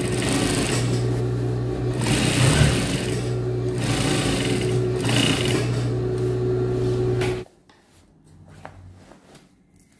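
Industrial lockstitch sewing machine running steadily as it stitches through fabric, with a steady hum, then stopping suddenly about seven and a half seconds in.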